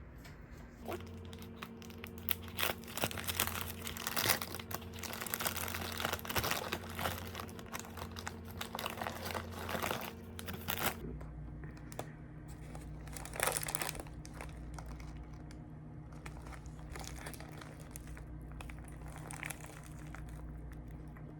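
Paper and plastic food wrapping crinkling and rustling as a takeout sandwich is unwrapped, dense for the first half and sparser after, over a steady low hum.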